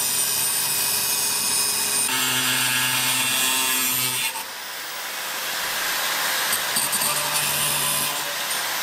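Angle grinder with a cut-off wheel cutting through metal tubing. Its motor whine and the grinding noise shift a couple of seconds in, ease off about four seconds in, then build up again as it keeps cutting.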